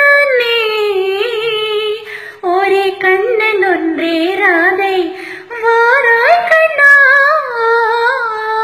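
A woman singing long, drawn-out melodic phrases with wavering, gliding ornaments, three phrases separated by short breaths, as part of a Tamil film song.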